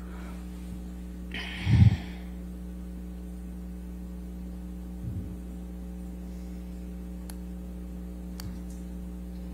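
Steady electrical mains hum on the courtroom audio feed. A brief loud rustle or thump comes about two seconds in, a softer thump about five seconds in, and a couple of faint clicks near the end.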